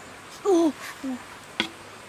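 Short wordless vocal sounds, the loudest a wavering 'ooh'-like call about half a second in, followed by a shorter one, with a single sharp knock about a second and a half in.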